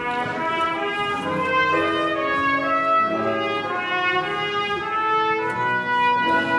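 Trumpet playing a melody of held and moving notes.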